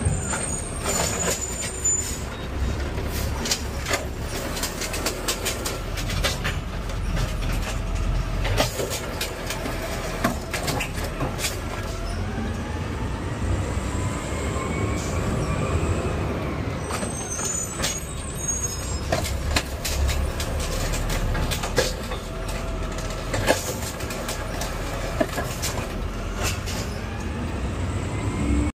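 Garbage truck's diesel engine running as it drives, heard from inside the cab, with a steady low rumble and frequent knocks and rattles. The engine pitch climbs and falls through the middle as it speeds up and slows, and brief high squeaks sound near the start and again about two-thirds through.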